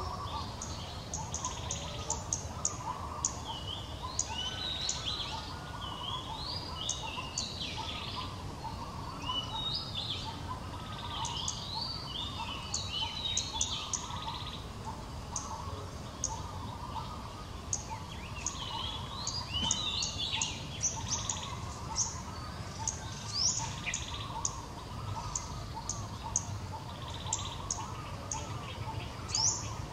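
Wild birds chirping and calling continuously, many short, quick sweeping notes overlapping from several birds, over a steady low outdoor rumble.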